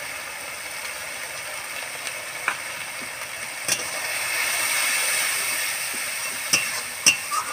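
Onion and spice masala frying down in a metal karahi, giving a steady sizzle. From about three and a half seconds in, a metal spatula stirs it: the sizzle swells, with scraping and a few sharp clinks against the pan.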